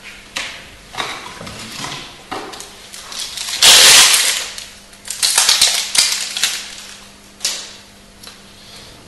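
Foil Magic: The Gathering booster pack wrapper crinkling and being torn open, in a series of crackling rustles, loudest about four seconds in and again a second or so later.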